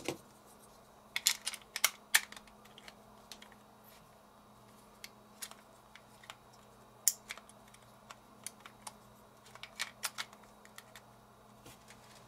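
Scattered sharp clicks and taps of a Daiwa Steez SV TWS baitcasting reel's small parts being handled and fitted, with the spool going into the frame; the clicks come in small clusters about a second in, around the middle and again near the end.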